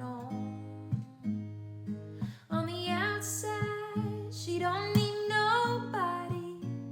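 Acoustic guitar playing a slow song, with a woman's singing voice holding and sliding between notes from a few seconds in.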